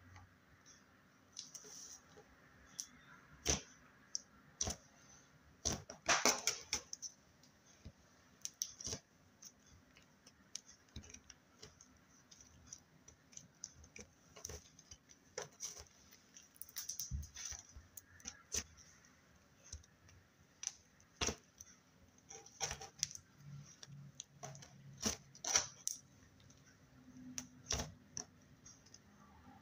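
Slime being squished and played with: irregular small clicks and pops, with a louder crackling run about six seconds in.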